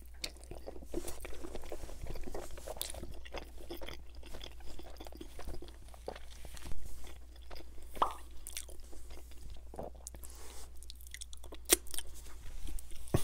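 A person chewing a bite of extra-cheese pan-crust pepperoni pizza: the crust crunching under moist chewing, with a few sharper crackles now and then.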